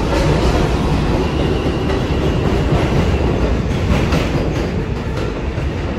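R142-class New York City subway train running on an elevated steel structure, with a loud steady rumble and wheels clattering over rail joints.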